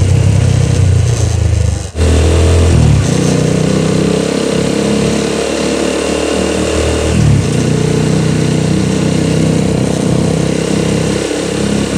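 Motorcycle engine running while riding along a city street, heard from on board. The sound dips briefly just before two seconds in, and the engine note changes pitch about three seconds in and again about seven seconds in, as with gear changes or throttle changes.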